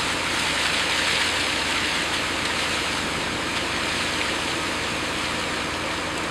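Heavy construction machine's diesel engine running steadily, with a strong even hiss over a low engine hum.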